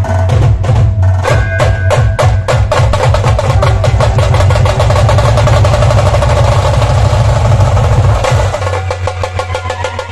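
Dhol tasha ensemble playing loud and fast: deep dhol beats under rapid rolling tasha strokes. About eight and a half seconds in the deep dhol beats drop out, leaving the tasha strokes.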